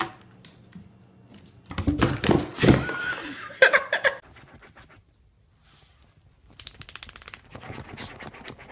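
A kitten tumbling against and into a cardboard box: a couple of seconds of cardboard knocks and scuffs mixed with a short voice-like sound. From about six and a half seconds in, a dog's claws scratch rapidly at fabric as it digs into a couch cushion.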